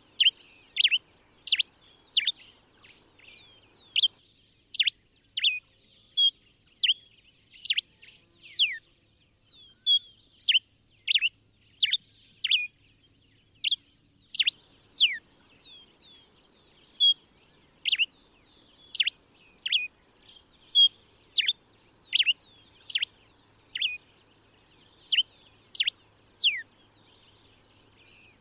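Common diuca finch (Diuca diuca) singing: a long run of short, clear whistled notes, many sweeping steeply down in pitch, coming about one or two a second.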